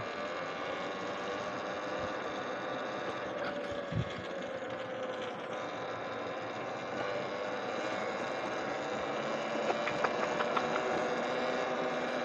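Electric dirt bike being ridden along a trail: a steady motor whine over wind and tyre rush. There is a low bump about four seconds in and a few light clicks near the end.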